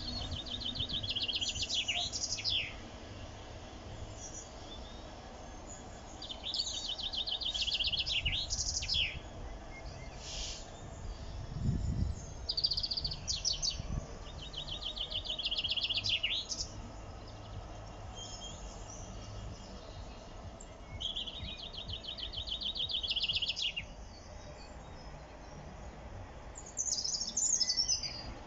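A songbird singing short, rapidly trilled phrases of two to three seconds each, repeated five times with pauses of a few seconds between, over a faint low rumble.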